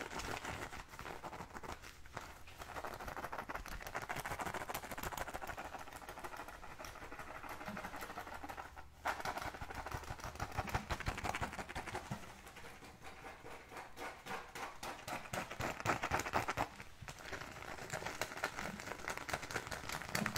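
Fingers scratching rapidly over a textured black Guess pouch, a dense run of quick scratchy strokes with brief pauses about nine and seventeen seconds in.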